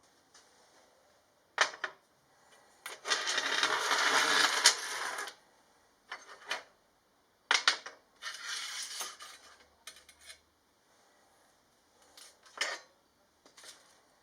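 Metal workshop parts clinking and knocking as they are handled, with two longer noisy stretches of about two seconds each, a few seconds in and again past the middle.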